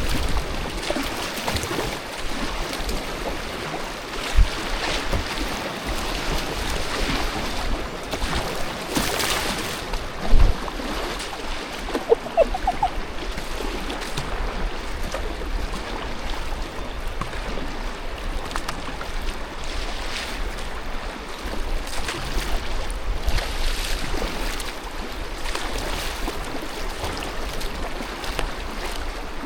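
Moving river water rushing around a kayak, with splashes from paddle strokes every second or two. A single sharp knock about ten seconds in is the loudest sound.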